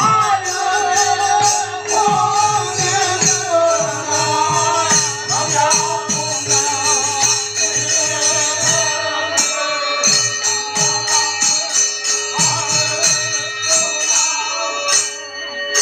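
Manipuri Nata Sankirtan music: pung barrel drums played in a fast, dense run of strokes, with metal cymbals ringing over them. Male voices sing wavering lines for the first few seconds.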